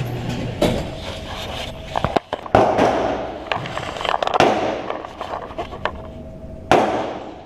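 Gunshots at a shooting range: about four loud shots roughly two seconds apart, each followed by an echoing tail, with fainter pops in between.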